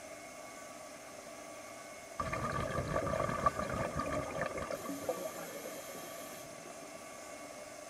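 Underwater, a diver's exhaled air bubbling out in one burst starting about two seconds in and lasting about two and a half seconds before fading, over a steady hiss.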